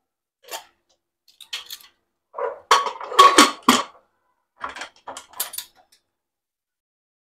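Metal pots and kitchen utensils clattering and clinking in a series of short knocks, the loudest cluster around the middle.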